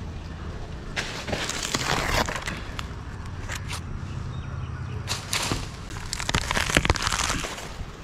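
Dry coconut-palm frond and sheath material crackling, rustling and snapping in irregular bursts as it is pulled and broken off the crown by hand.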